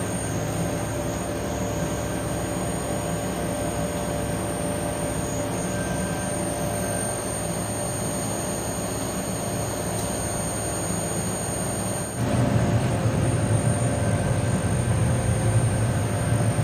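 Factory machinery running steadily: a constant mechanical hum with a few held tones. About twelve seconds in it changes abruptly to a louder, deeper machine rumble.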